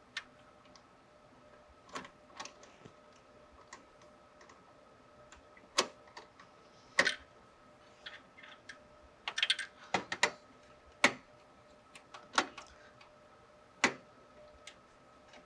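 Scattered, irregular clicks and light knocks of a CPU heatsink being set onto the CPU and shifted until its screws line up with the mounting holes around the socket.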